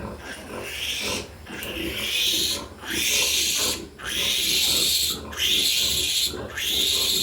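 Piglet squealing: a run of about six shrill screams, each around a second long, with short breaks for breath between them.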